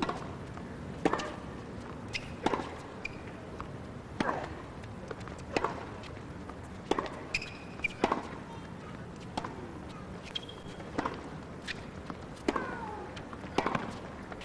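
Tennis ball being struck by rackets and bouncing on a hard court during a serve and rally: a string of sharp pops at uneven intervals of about a second, with a few short high squeaks, over steady arena hum.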